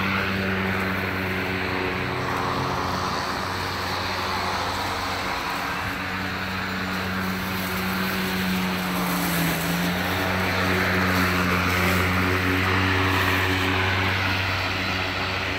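EGO cordless electric lawn tool running steadily: a motor hum with a whirring, rushing cutting noise over it, its tone shifting slightly around the middle.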